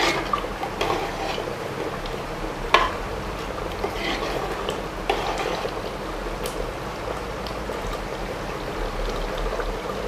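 Metal spoon stirring thick beef curry in a pressure cooker pot: a steady wet sloshing, with a few sharp clinks of the spoon against the pot.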